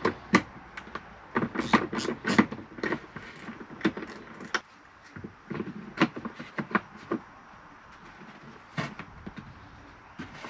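Irregular plastic clicks and knocks of snap-on covers being pushed and fitted over bus bars on a 12-volt electrics board, in quick clusters with short pauses between.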